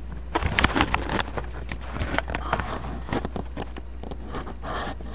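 Two Beyblade spinning tops whirring and clicking as they spin and knock together on a wooden table, mixed with knocks and rubbing from a handheld webcam being moved; a cluster of sharp clicks comes about half a second in.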